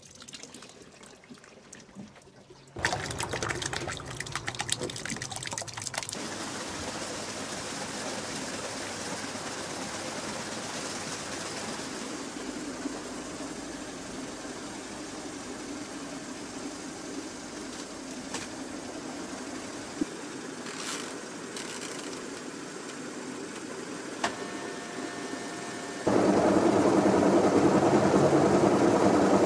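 Top-loading washing machine used as a paper-pulp hydropulper. After a few quiet seconds, water runs steadily into the tub. About 26 seconds in, the motor starts and the agitator churns the pulp, much louder.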